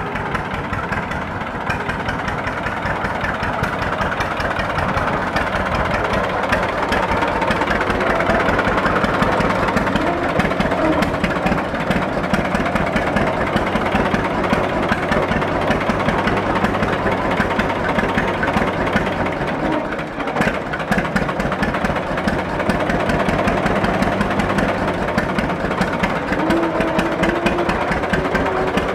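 John Deere Model D's two-cylinder engine running, its exhaust beating in a fast, even pulse. It gets louder over the first several seconds and drops away briefly about two-thirds of the way through.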